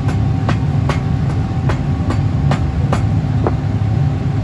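Steady low rumble of machinery running, with sharp, evenly spaced clicks about two and a half times a second that stop about three and a half seconds in.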